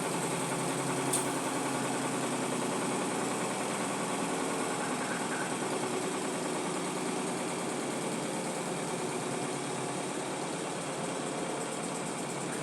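Brastemp Clean washing machine running with a steady motor hum and churning, with a single sharp click about a second in.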